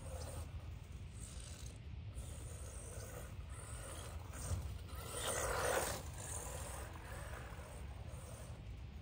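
Arrma Mojave Grom, a small electric RC desert truck, driving over grass some way off: a faint whirring and whining from its motor and gears, rising in pitch and falling back. It gets briefly louder a little past halfway.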